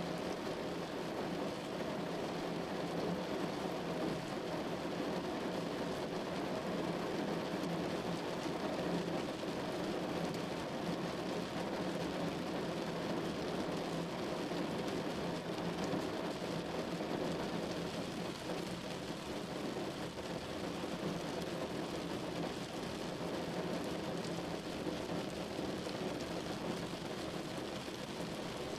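Rain falling steadily on a window: an even, unbroken rushing noise with no single sharp drops or events standing out.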